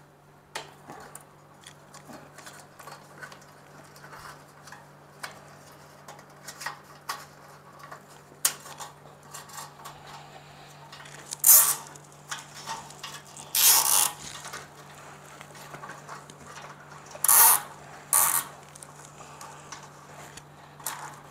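Nylon cable ties being pulled tight around wiring, each zipping through its ratchet in a short burst, four times in the second half. Between them, light clicks and rustles of wires being handled.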